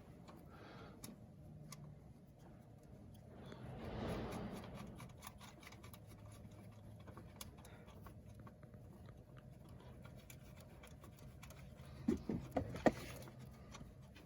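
Faint handling and rustling as a jumper lead is fitted to a starter motor's terminal, with a few sharp metallic clicks near the end.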